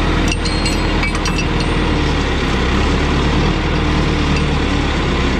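John Deere skidder's diesel engine idling steadily, with a few light metallic clinks in the first second or so.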